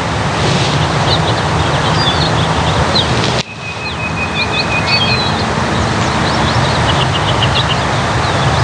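Small birds chirping again and again over a steady rushing background noise. The noise cuts out for an instant and resumes about three and a half seconds in, and a thin steady whistle sounds for a second or two just after.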